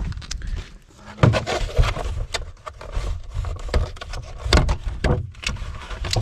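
A clear plastic clamshell package holding a pipe heater cable is handled and pulled open: irregular crackling, scraping and sharp clicks of stiff plastic, with a few louder knocks.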